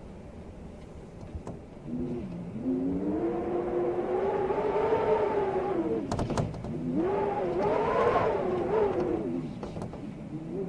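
Storm wind howling in gusts: a pitched tone that rises and falls, swelling twice, with a few sharp clicks between the two gusts.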